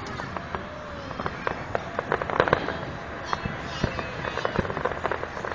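Aerial fireworks going off: an irregular run of sharp pops and crackles, thickest about two seconds in.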